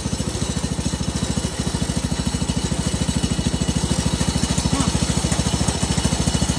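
Wheel Horse C161's single-cylinder Kohler engine running steadily with an even, rapid beat, the tractor's engine brought back to life after years of sitting.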